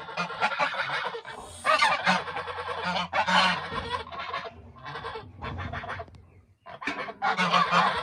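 Geese honking, several birds calling in a series of loud, harsh honks with a short lull near the end.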